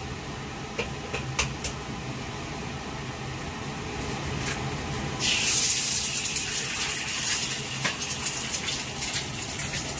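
An egg cracked against the edge of a hot wok, a few sharp taps, then about five seconds in it drops into the hot oil and sizzles loudly in a steady hiss.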